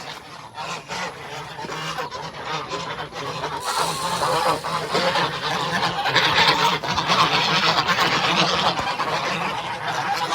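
A group of geese honking over one another as they are fed. The calling swells to a loud, dense clamour about four seconds in.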